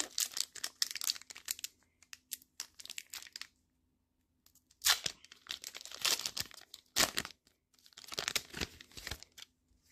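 A foil Pokémon booster pack wrapper being torn open and pulled apart by hand, crinkling in several quick tears. There is a short pause about halfway through, followed by sharper, louder tears.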